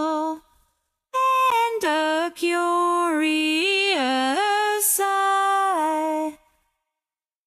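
A woman singing a slow song melody of long held notes that step up and down. There is a short break near the start, and the singing stops about six and a half seconds in.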